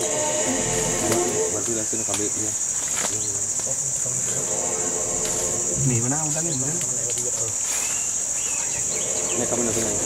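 Forest insects droning steadily and high-pitched, a continuous chorus. Low, wavering voices come and go underneath, most clearly near the start and around the middle.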